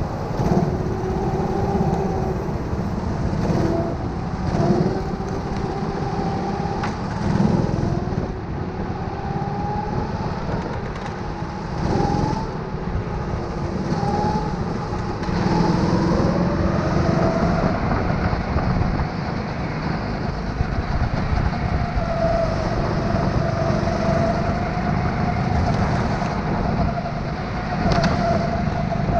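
Racing kart's motor heard from on board, its pitch rising and falling over and over as the driver accelerates out of corners and lifts into them, with the motors of nearby karts close by.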